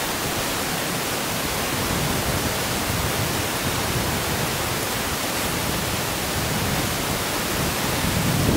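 Steady hiss with an uneven low rumble: wind blowing across the camera's microphone.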